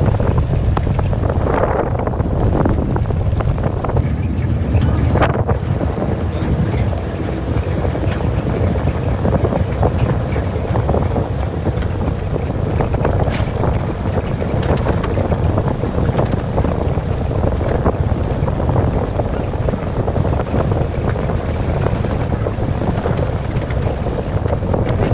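Safari jeep driving, its engine and the wind on the microphone making a steady low rumble, with a high pulsing insect chorus throughout.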